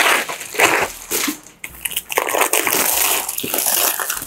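Clear plastic wrapping crinkling in irregular bursts as it is pulled off a soundbar by hand.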